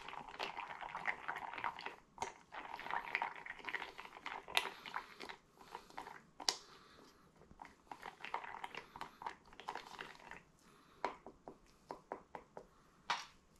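Wooden stir stick scraping and clacking against the side of a plastic mixing cup as chocolate chips are stirred through thick liquid resin, with crunchy clicks from the chips. It goes in bursts with short pauses, and near the end there are a few separate taps.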